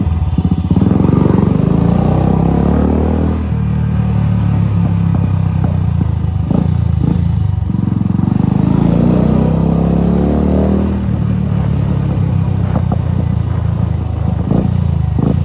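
Royal Enfield Bullet's single-cylinder four-stroke engine running as the motorcycle is ridden, a steady low beat whose pitch climbs and drops a few times with the throttle.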